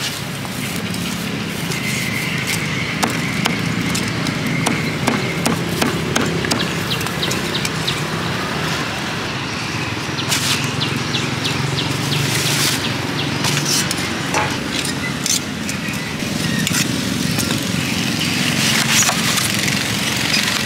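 Cleaver knocking on a chopping block as grilled sausage is cut, then a foam takeaway box being handled and packed with a rattle of clicks and crinkles, over a steady low hum of street noise.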